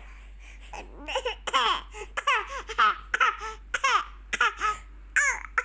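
Baby laughing in a run of short, high-pitched bursts that fall in pitch, starting about a second in.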